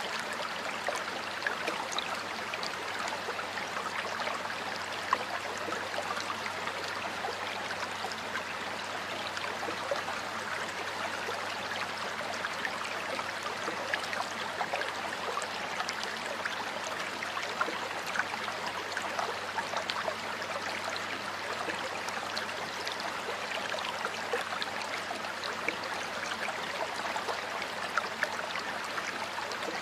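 Shallow stream water flowing steadily over stones, a constant babbling rush with small splashes.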